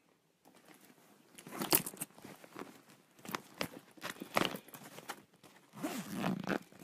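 Rustling and crinkling of bags and clothes being handled while packing a suitcase, in irregular bursts with a few louder rustles.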